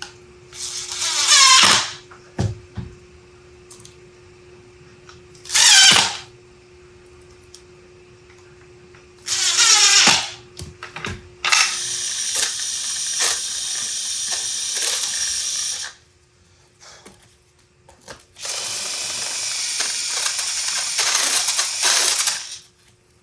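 DeWalt cordless power drivers working on a small wooden box: three short trigger pulls in the first ten seconds, the motor whirring up and dying away each time, then two longer steady runs of a few seconds each in the second half.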